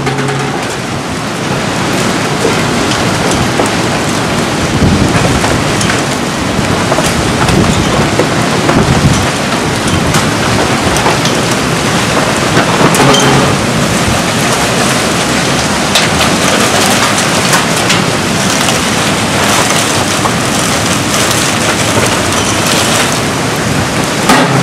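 Heavy rain mixed with hail pelting down, a dense steady hiss scattered with sharp ticks of stones striking. It builds up over the first couple of seconds.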